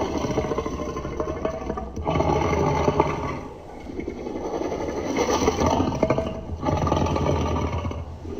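Designed Tyrannosaurus rex sound effect: a run of about four deep, rough growls one after another, with short breaks between them.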